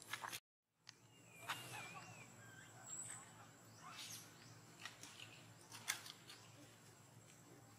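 Quiet outdoor ambience with a short warbling bird call about a second and a half in and a few light clicks and knocks scattered through.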